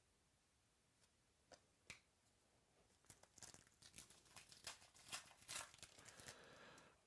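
Trading-card pack wrapper being torn open and crinkled. Two light clicks come first, then a run of crackling tears in the middle and a softer rustle near the end.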